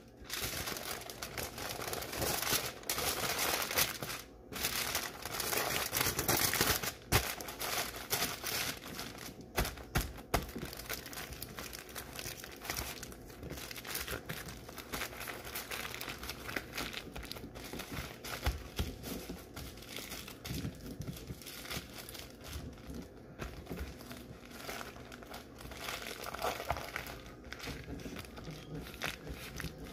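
Heavy-duty aluminum foil, three layers thick, being folded and crumpled by hand into a sealed food packet: dense crinkling and crackling, louder over the first several seconds, then softer and more scattered.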